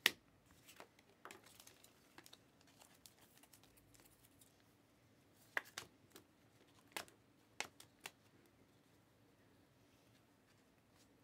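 Panini Prizm trading cards handled in a stack, giving sharp clicks and snaps as the cards are flicked and slid against each other. One click comes right at the start, a few light ones follow, and four sharper ones come together in the middle, with near quiet between.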